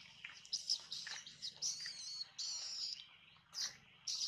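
Young long-tailed macaque giving high-pitched squeaks and chirps: a string of short cries, with two longer drawn-out calls in the middle.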